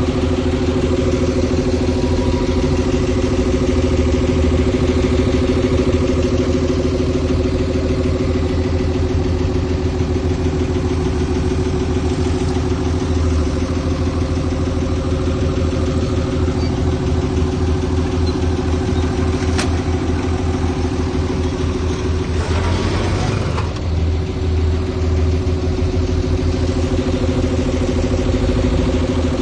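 Diesel engine of heavy earthmoving machinery running steadily at an even pitch, with a single sharp tick and then a brief rushing noise a little past the two-thirds mark.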